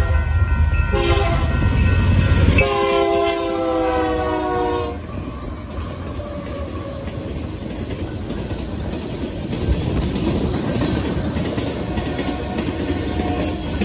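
Union Pacific diesel locomotives passing over a grade crossing, their multi-note air horn sounding in blasts over a deep engine rumble, the last blast ending about five seconds in. Then hopper cars roll by with steady wheel clatter on the rails.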